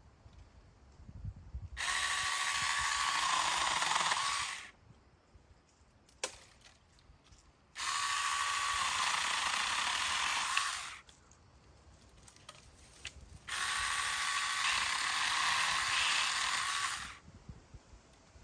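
Saker battery-powered mini chainsaw running in three bursts of about three seconds each, trimming the lower branches of a pine tree. There are short quiet gaps between the bursts.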